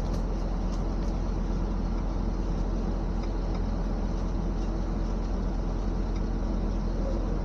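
Excavator's diesel engine running steadily, a constant low hum heard from inside the cab.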